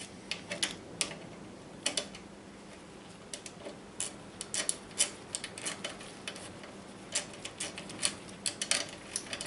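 Irregular metallic clicks, some in quick runs, from a hand tool tightening the mounting nut of a dual pivot brake caliper. The nut is being nipped up only partly, so the caliper can still swing side to side.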